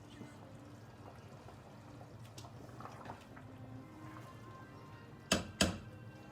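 Soft liquid sounds from a pot of thick stew over a faint steady background, then two sharp knocks close together near the end, like a utensil hitting the pot.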